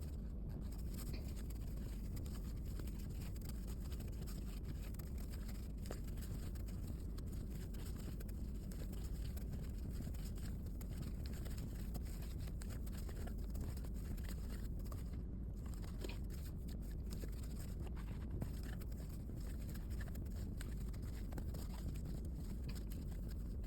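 Steady low background rumble with faint scratching and ticking sounds scattered through it.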